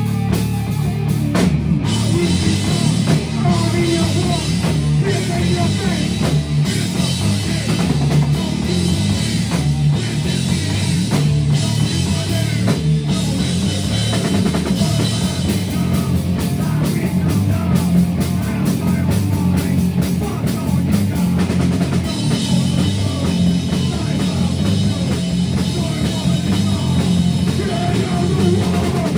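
Live rock band playing loud and without a break: electric guitars, bass guitar and a Tama drum kit, with a singer singing into the microphone.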